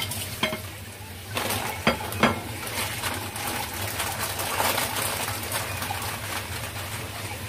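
A cooking utensil knocking and scraping against a pan as food is stirred, with a few sharp clinks in the first couple of seconds, then a steady scraping and sizzling.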